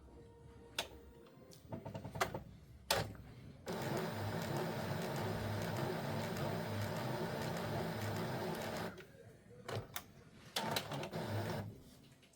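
Epson EcoTank inkjet printer's mechanism running: a few clicks, then a steady whir for about five seconds, stopping, and a shorter run of the same near the end.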